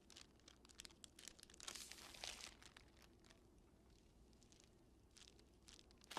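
Faint rustling and crinkling with many small clicks, thickening into a brief louder crackle about two seconds in.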